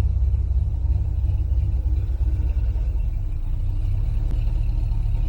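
Off-road vehicle engine running, a steady low rumble.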